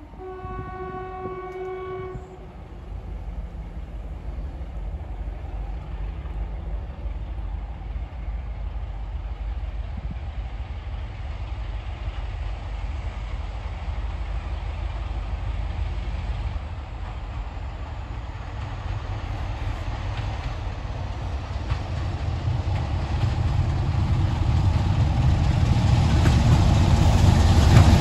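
BR Class 33 diesel-electric locomotive sounding a low horn note for about two seconds, then its Sulzer diesel engine and train growing steadily louder as it approaches with a rake of coaches, rising to a loud rumble as it arrives.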